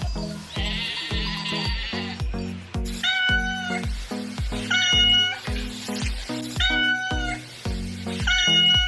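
A sheep bleating with a wavering voice, then a cat meowing four times in short, even calls, all over background music with a steady beat.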